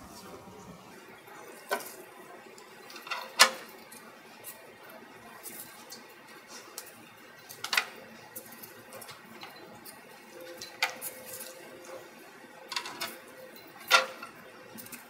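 Scattered sharp clicks and light taps, about half a dozen at irregular intervals, as a new tip seal strip is worked into the spiral groove of a scroll pump's scroll plate with gloved fingers and a wooden dowel.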